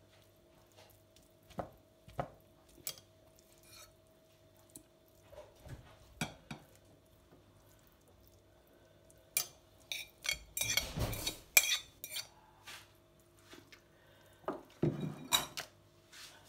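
Metal fork scraping and tapping as it spreads minced-meat filling over mashed potato on parchment paper on a baking tray. It gives scattered clicks, with a longer run of scraping about ten seconds in and another shorter one near the end.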